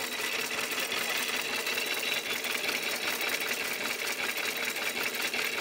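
A machine running with a steady, rapid clatter of even ticks.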